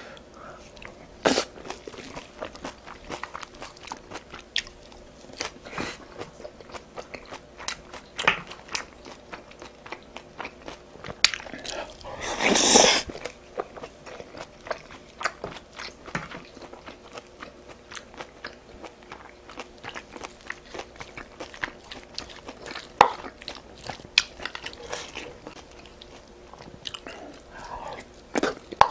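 A person chewing and biting food close to the microphone, with many short mouth clicks throughout. About twelve seconds in there is one louder rush of noise lasting under a second.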